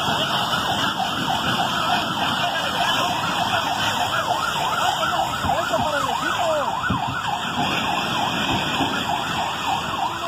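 Emergency vehicle sirens in a fast yelp, more than one siren sweeping up and down in pitch several times a second, over steady street and engine noise.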